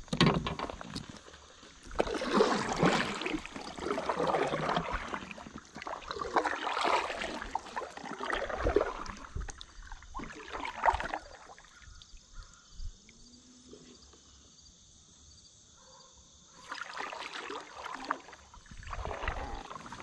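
Water swishing and splashing around a moving fishing kayak, coming in uneven surges of a second or more, with a quieter spell about two-thirds of the way through.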